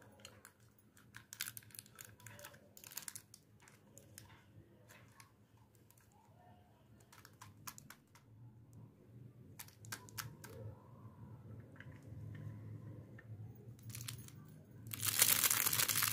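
Scattered small clicks and taps as a miniature plastic toy fridge is handled and wrapped candies are taken out of it. Near the end comes a loud crinkling of a plastic candy wrapper as it is twisted and pulled open.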